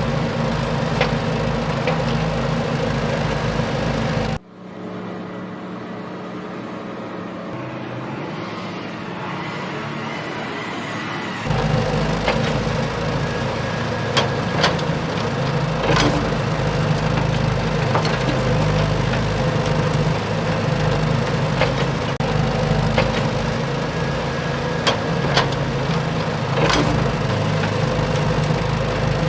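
Excavator's diesel engine running steadily, with sharp metallic clanks now and then. About four seconds in the sound drops to a quieter, duller engine hum for some seven seconds, then the louder engine and clanks return.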